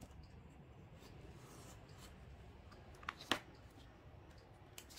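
Faint scraping of a paper-cutting blade run around a plastic template through cardstock, then a couple of sharp clicks a little over three seconds in.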